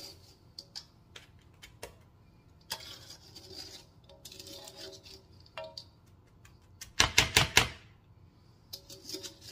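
Metal spoon scraping and clicking against a stainless steel mixing bowl as a sticky cornflake mixture is scraped out, with a quick run of loud clatters about seven seconds in.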